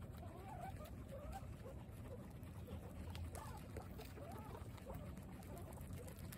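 Guinea pigs chewing fresh grass, with many small crisp clicks of munching, and short faint chirping calls scattered throughout.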